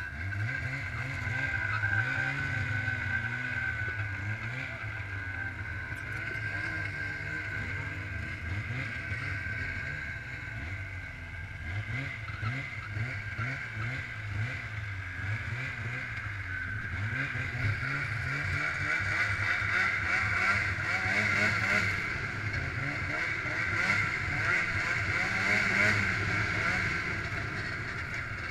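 Snowmobile engine running steadily as the machine rides over snow, heard from the rider's seat, a little louder in the second half.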